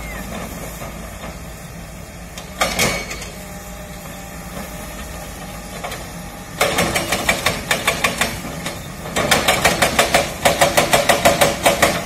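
Tracked excavator's hydraulic rock breaker hammering rock in rapid strikes, about five a second, starting about six and a half seconds in with a brief pause near nine seconds. Beneath it the excavator's diesel engine runs steadily, and there is a single loud clank near three seconds.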